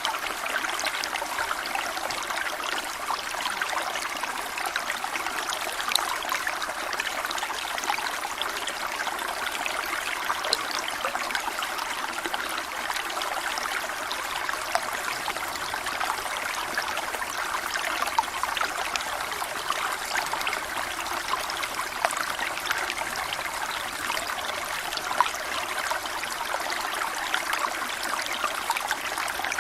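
Small stream babbling and trickling steadily over stones, a continuous water rush dotted with small splashes and gurgles.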